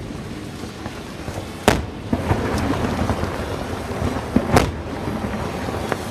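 Barge fireworks display: two sharp explosive reports about three seconds apart over a continuous rumble and crackle of shells.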